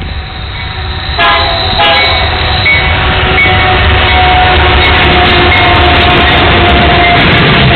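Diesel locomotive leading a freight train sounds its air horn as it approaches: a short blast about a second in, then a long blast held for about five seconds, over the train's rumble, which grows louder as it nears.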